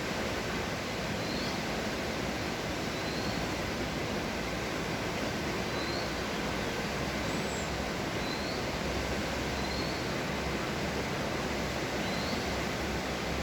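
Floodwater rushing in a steady roar. A small bird gives short high chirps every second or two over it.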